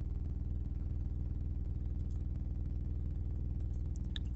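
Steady low electrical hum under the recording, with a few faint clicks near the end, typical of a computer mouse stepping through the model.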